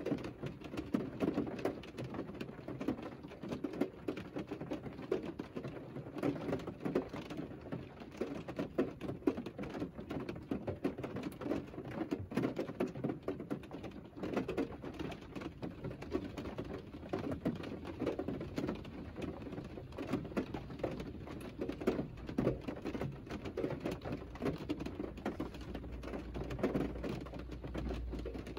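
Rain drumming steadily on the roof and windscreen of a Mercedes car, heard from inside the cabin as a dense patter of drops. A low rumble joins near the end.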